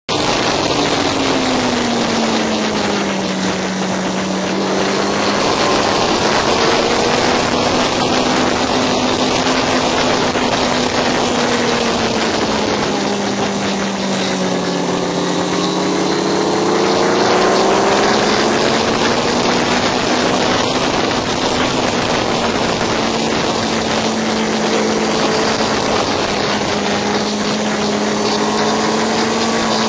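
Racing motorcycle's engine running at speed under heavy wind rush on the microphone, its pitch sliding slowly down and back up several times as the throttle changes.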